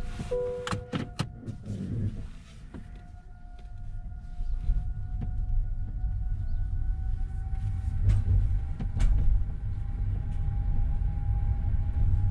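Inside a car's cabin as it pulls away: a short electronic chime beep and a few sharp clicks at the start, then a low rumble of engine and tyres that builds from about four seconds in, with a faint steady whine above it.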